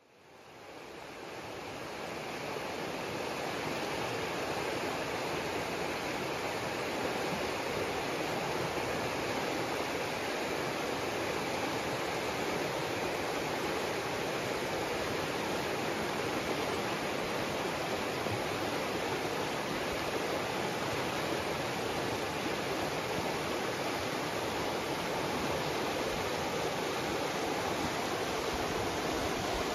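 A fast, shallow mountain river rushing over stones: a steady, full rush of water. It fades in over the first couple of seconds, then holds even.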